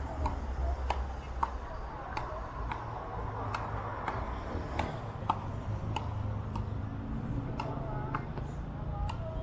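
A regular series of sharp clicks, about three every two seconds, each ringing briefly, over a steady low rumble.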